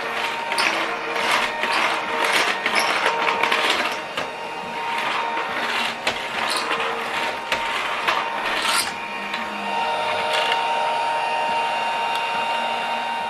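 Children's toy vacuum cleaner's small battery motor running with a steady whine. Repeated scratchy bursts sound over it during the first nine seconds or so, then only the whine.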